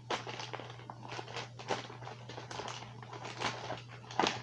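Rummaging through a mesh pencil case: plastic pens and school supplies clicking and knocking together, with the pouch crinkling, in many quick irregular clicks.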